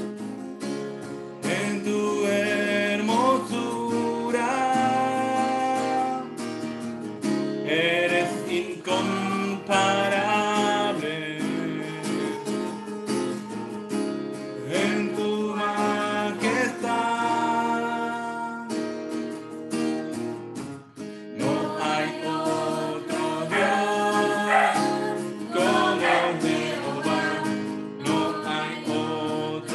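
Singing of a Spanish-language worship chorus with guitar accompaniment. The song moves from one verse into the next line near the end.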